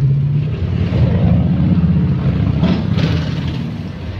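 Tour bus diesel engine running as it drives past, its low note rising slightly, then fading toward the end.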